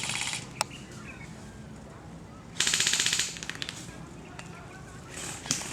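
Airsoft guns firing full-auto: a short burst right at the start and a longer one of about two-thirds of a second near the middle, each a fast, even rattle of shots, with a few lighter clicks near the end.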